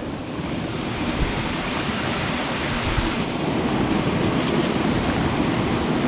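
Mountain stream water rushing steadily over rocks, an even hiss that thins a little in its highest part about halfway through.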